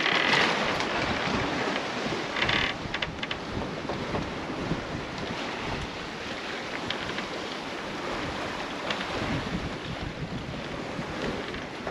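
Wind buffeting the microphone over the steady wash of waves along a sailing yacht's hull as it sails through the swell. There are louder gusts or splashes at the start and about two and a half seconds in.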